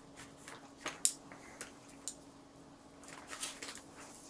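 A few faint clicks and light taps of small objects being handled on a tabletop, the sharpest about a second in, over a faint steady hum.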